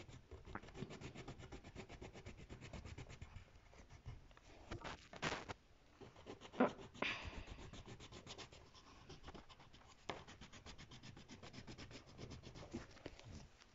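Coloured pencil scratching across paper in quick, repeated back-and-forth shading strokes, with a few louder bumps around the middle.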